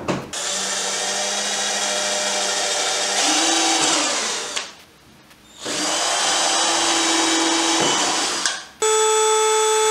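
Cordless drill running as it bores into a pine board clamped in a 3D-printed plastic bench vise, in two runs with a short stop about halfway. Near the end a rotary tool starts with a steadier, higher whine.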